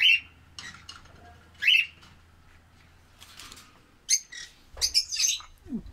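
Caged pet parrots calling: two short, loud calls in the first two seconds, then a quick run of high chirps about four to five seconds in.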